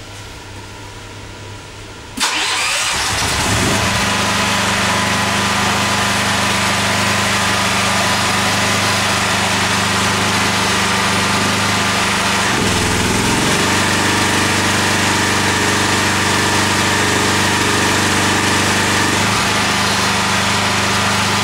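Honda EM4500S semi-silent generator with a single-cylinder GX390 petrol engine: it starts about two seconds in and settles to a steady, loud run. Its note dips and changes at about twelve and a half seconds and changes back at about nineteen seconds, as load is put on and taken off again.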